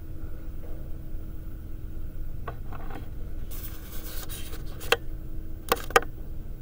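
Indoor room tone: a steady low rumble with a faint constant hum, a brief hiss a little past halfway, and three sharp clicks near the end.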